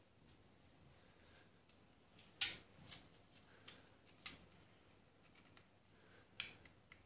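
Wooden parts of a replica bolt-action rifle clicking and knocking together as the wooden bolt is handled and fitted. There are about five short, sharp clicks, the loudest about two and a half seconds in.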